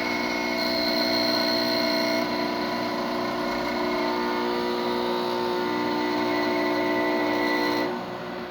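Quickmill Andreja espresso machine's vibratory pump humming steadily while it pulls a shot. The level drops a little about eight seconds in.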